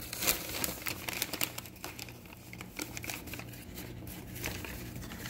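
Rustling and crinkling: a run of small irregular crackles, busiest in the first second or so and sparser after.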